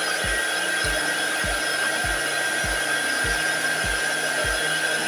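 Cheap mini hot air gun running, its small fan blowing with a steady rushing noise and a thin steady whine while it warms up. A soft low pulse repeats about every 0.6 s.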